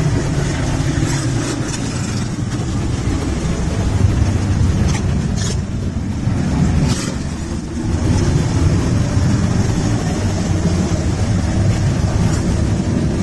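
Many motorcycle engines running together in a steady low drone as a large group of bikes rides by.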